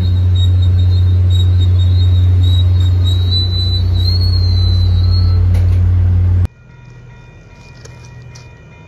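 An EMD F40PH-3C diesel locomotive's engine drones loudly and steadily as the commuter train approaches, with a thin high squeal wavering over it. About six and a half seconds in the sound cuts abruptly to a quiet outdoor background with faint steady high tones.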